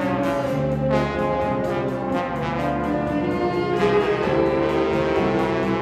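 A school band's brass section playing slow, held chords that shift every second or so, with a soft steady tick about four times a second above them.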